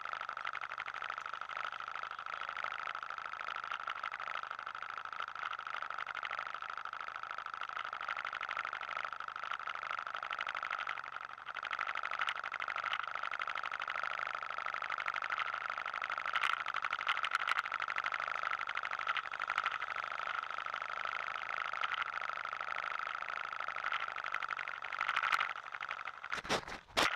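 ATV engine idling steadily while stopped at the roadside, a constant hum, with a few sharp clicks near the end.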